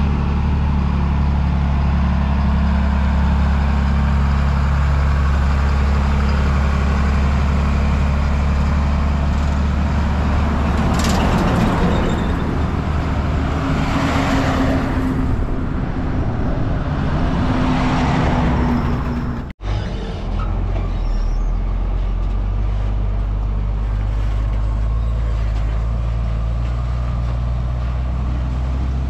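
Heavy diesel trucks, among them a Hino 22-wheel dump truck, driving past: a deep steady engine drone with tyre and road noise swelling several times as trucks go by. The sound cuts out for a moment about two-thirds of the way in, then a steady low engine drone carries on.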